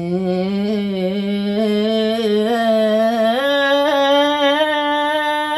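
An elderly woman singing unaccompanied: one long, unbroken line with a wavering pitch that steps up about three seconds in.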